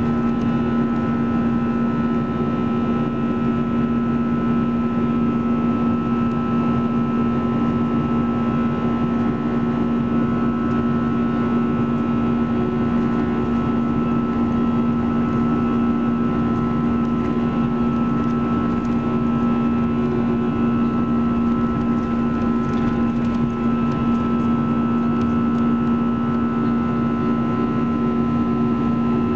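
Airbus A320-214 in the climb, heard from a cabin seat over the wing: its CFM56-5B turbofan engines and the rush of air make a steady, loud drone with a few steady humming tones in it, unchanging throughout.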